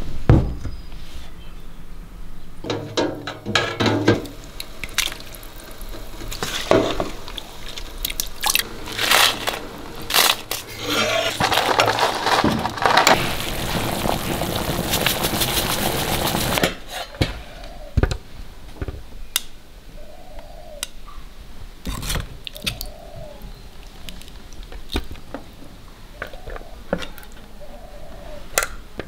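Light clicks and knocks of bowls and utensils, then for about five seconds the steady bubbling of a stainless pot of chili broth with dried red chilies at a rolling boil, which cuts off suddenly. Light taps and clicks follow near the end.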